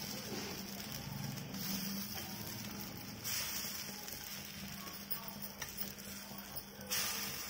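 Mini dosas sizzling in oil on a hot cast-iron tawa, the sizzle swelling about three seconds in and again near the end as the dosas are turned over with a metal spatula.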